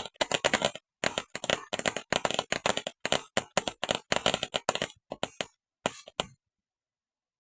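Consumer firework crackling: a rapid, irregular run of sharp pops and cracks that cuts off suddenly about six seconds in.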